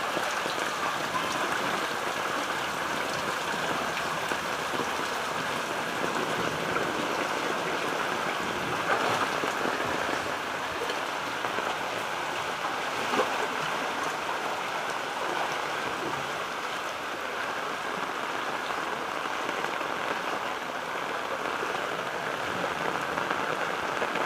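Heavy rain pouring steadily, mixed with the rush of floodwater running down the street.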